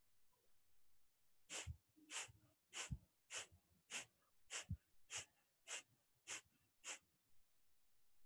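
Ten sharp, forceful exhalations through the nose, about two a second, each pushed out by a quick inward pump of the belly: Kapalabhati (skull shining breath) pranayama.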